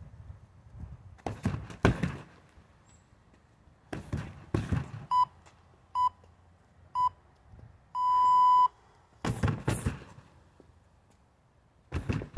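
Strikes thudding against a foam-wrapped freestanding heavy bag in short clusters. Midway, an interval timer beeps three short beeps about a second apart, then one longer beep, counting down to the start of a round.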